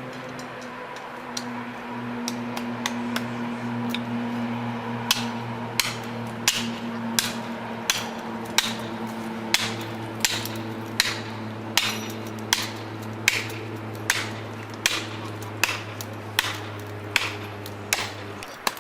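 Regular sharp hammer-like strikes, about one every 0.7 seconds, louder from about five seconds in, over a steady machine hum.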